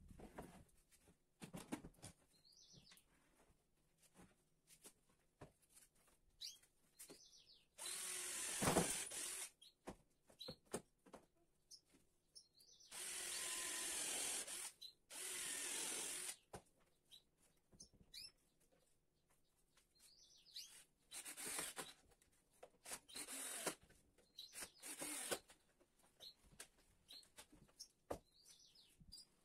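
Cordless drill-driver driving screws into a pine board frame, running in six bursts of one to two seconds each. Short knocks and clicks of wood and clamps being handled come between the bursts.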